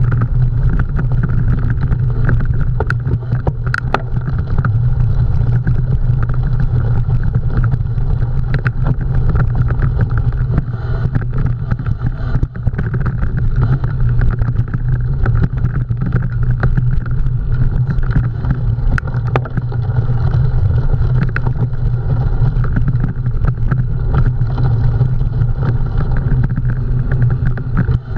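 Steady low rumble and wind buffeting from riding a cyclocross bike at race pace, with scattered clicks and rattles from the bike.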